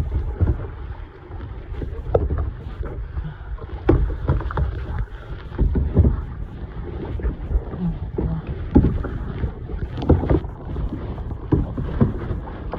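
Sea kayak out on the ocean: irregular water splashes from the paddle and the hull, over a heavy low rumble of wind on the microphone.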